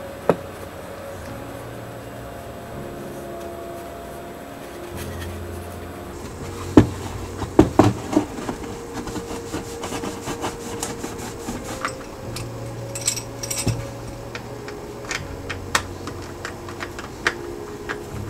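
Soft background music with held notes that change every second or two. Over it come scattered clicks and knocks of tools and small parts being handled on a wooden workbench, the loudest a cluster about seven to eight seconds in.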